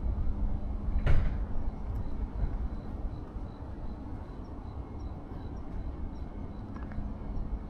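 Low, steady rumble of city traffic, with a single sharp knock about a second in and a couple of faint clicks near the end.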